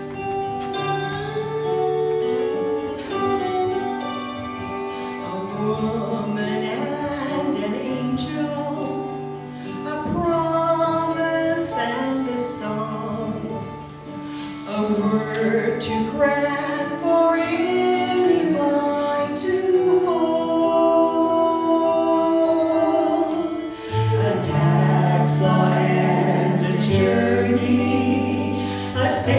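Small mixed group of men and women singing together into microphones, over an instrumental accompaniment of long held low notes; the singing swells louder over the last few seconds.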